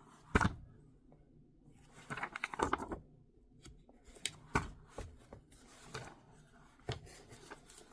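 Comic books being handled: scattered rustles and light taps, with a busier patch of rustling about two to three seconds in.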